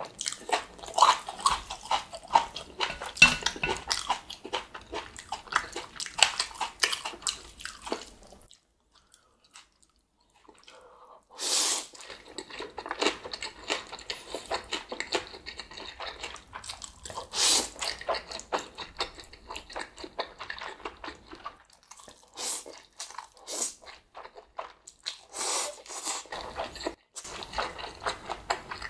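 Close-up eating sounds of a person eating Chapagetti black bean instant noodles and spicy green onion kimchi: irregular chewing and biting with crunches and wet mouth sounds. The eating stops for about three seconds roughly a third of the way in.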